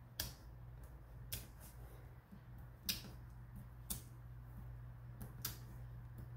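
Faint, scattered clicks, about one a second, of a metal piercing tool picking the paper backings off foam adhesive dots on a piece of card stock, over a low steady hum.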